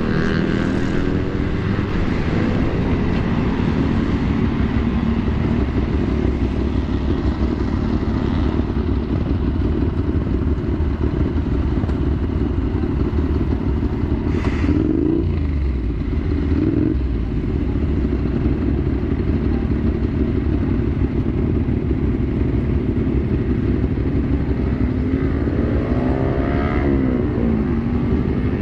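Two-stroke Kawasaki Ninja RR motorcycle engine, first riding along and then idling at a stop among other motorcycles. There are short revs about halfway through and again near the end.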